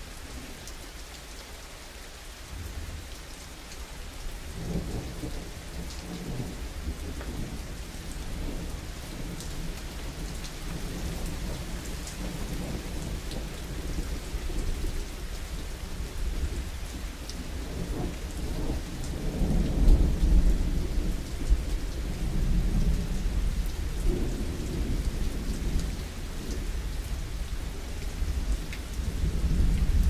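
Steady rain with rolling thunder: a low rumble swells from about four seconds in, is loudest a little past halfway, and swells again near the end.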